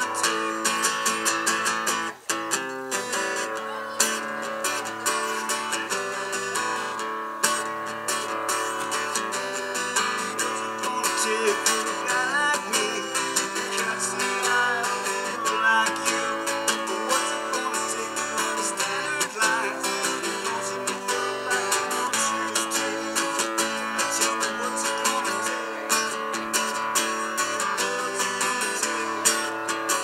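Acoustic guitar strummed steadily, an instrumental passage without singing, with one very brief break about two seconds in.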